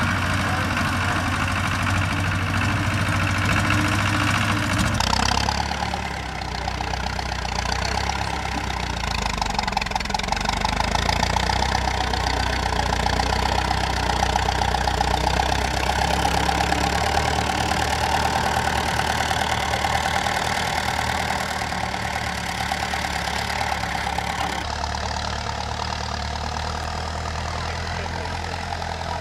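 Vintage tractor engines running at low speed. A red tractor's engine is heard first; about five seconds in a cut switches to a small grey Ferguson tractor's engine, chugging steadily as it drives over rough ground.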